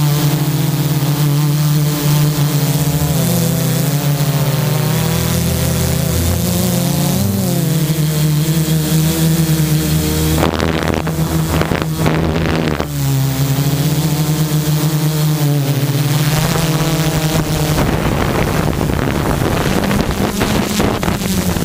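Multirotor drone's electric motors and propellers humming steadily, heard close from the onboard camera, the pitch drifting slightly as the drone manoeuvres. About ten seconds in, wind noise on the microphone rushes over the hum for a few seconds.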